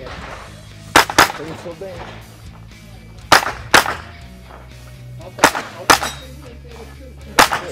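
Semi-automatic .22 rimfire rifle fired in quick pairs of shots, three pairs about two seconds apart and one more shot near the end.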